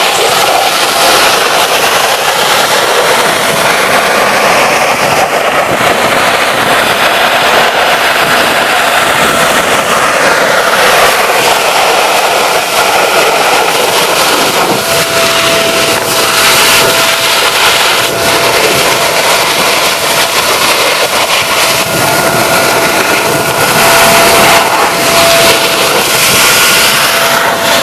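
Vacuum cleaner motor running loud and steady while it sucks up small stones, which rattle and clatter as they are drawn in. A steady whine rides over the noise from about halfway through.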